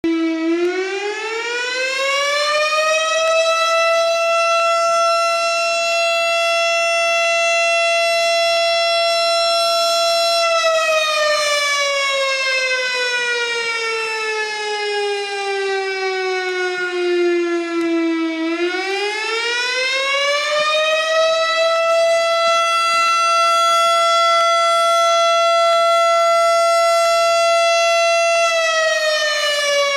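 STH-10 electromechanical fire siren winding up to a steady wail, holding it, winding down partway, then winding up and holding again before starting to wind down near the end. It is sounding a fire call to summon the volunteer fire department.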